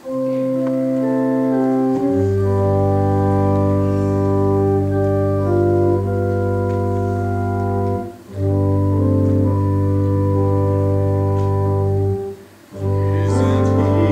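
Organ playing the slow introduction to a hymn in sustained chords. A deep bass note comes in about two seconds in, and the chords break off briefly twice between phrases.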